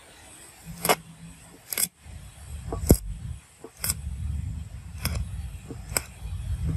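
TIG welding on a metal generator housing: the arc makes a low rumble, broken by sharp crackling clicks about once a second.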